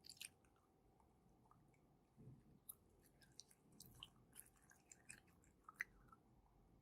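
Slime being squeezed and kneaded by hand, making faint scattered wet clicks, pops and soft squishes, with one sharper pop near the end.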